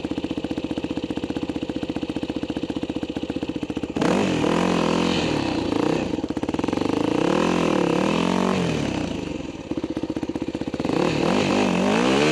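Small dirt bike engine idling with a steady rapid pulse, then revving up about four seconds in and rising and falling in pitch as the bike rides off. It eases off briefly about nine seconds in, then revs again near the end.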